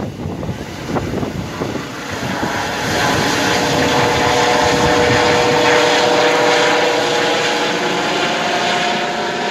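Air ambulance helicopter flying overhead as it climbs away after takeoff: steady rotor and engine noise with a level whine, which grows louder about three seconds in.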